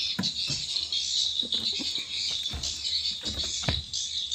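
A steady, dense twittering of swiftlets, with scattered short knocks and rustles as harvested swiftlet nests are gathered together by hand.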